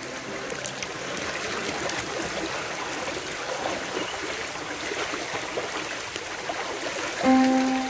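Rushing water of a rain-swollen hill stream in brown flood. Background music comes in loudly near the end.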